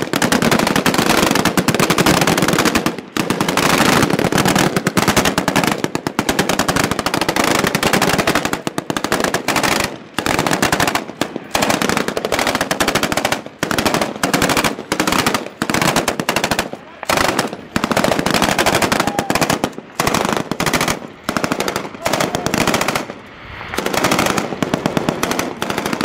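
Sustained automatic gunfire from several light machine guns and rifles firing at once: long overlapping bursts of rapid shots with only a few brief lulls.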